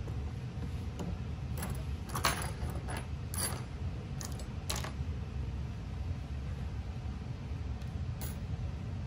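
Light metallic clicks and clinks, bunched in the first half with one more near the end, as the metal action of a partly disassembled air rifle is handled and turned in the hand. A steady low hum runs underneath.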